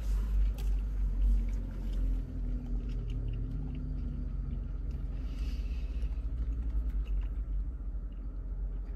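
Low steady rumble of a parked car idling, heard inside the cabin, with quiet chewing and a brief sip through a straw about five seconds in.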